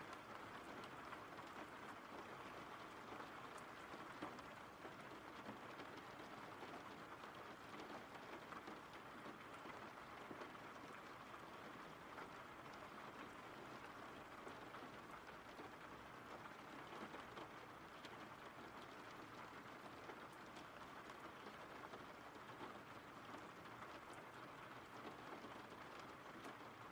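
Faint, steady rain: an even hiss of rainfall with a light patter of scattered drops.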